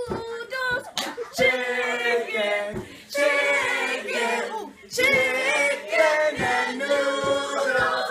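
A group of young voices singing a chant together without accompaniment, broken by short sharp hand claps.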